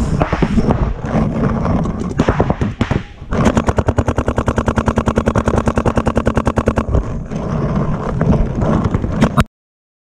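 Paintball marker firing: scattered pops at first, then a rapid, even string of about a dozen shots a second lasting about three seconds, then more scattered shots. The sound cuts off suddenly near the end.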